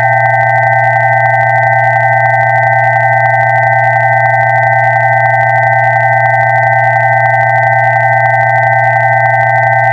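Several pure electronic sine tones sounding together and held steady without any change: a low tone, a cluster of middle tones and two higher ones.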